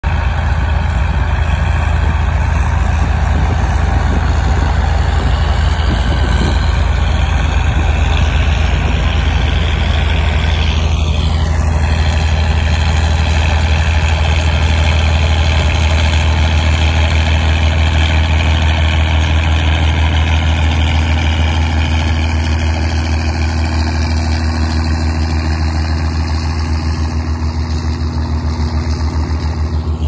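Volvo BM tractors' diesel engines running steadily under load while pulling mounted ploughs, a loud, constant low drone.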